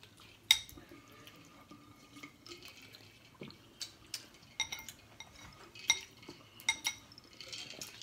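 Ice cubes clinking in a glass jar of water as it is tipped up and drunk from: one sharp clink about half a second in, then scattered lighter clinks.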